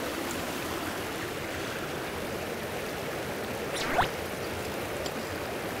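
Steady rushing of flowing stream water. About four seconds in, a brief sharp rising sound cuts through it.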